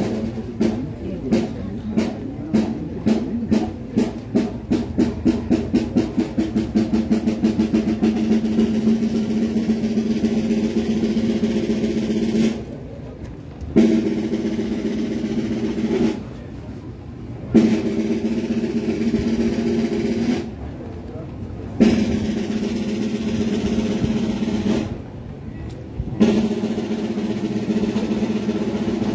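Procession drums playing: single strokes speed up over the first several seconds into a continuous roll, then a series of rolls about three seconds long, each opening with an accented hit and separated by short pauses.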